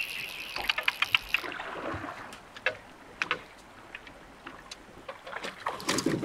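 Water and small knocks and splashes around a drift boat as a hooked trout is brought in. There is a quick run of sharp clicks in the first second and a half, then scattered single clicks and taps.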